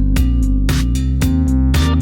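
Background music: an upbeat instrumental track with guitar over a steady beat and bass line.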